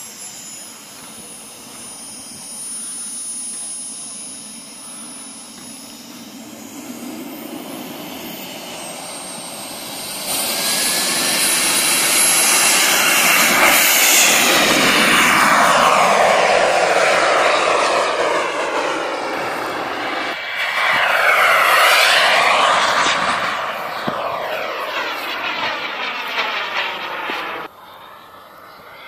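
JetCat P-180 turbine of a BVM Ultra Bandit RC jet: a thin high whine at low power, then spooling up about ten seconds in to full power for the takeoff roll. The loud rushing jet noise sweeps past and climbs away, and drops off suddenly near the end to a quieter, more distant whine.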